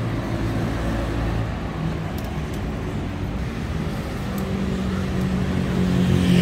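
Road traffic: a steady low engine rumble and road noise, with one engine's note coming in about four seconds in and growing louder near the end.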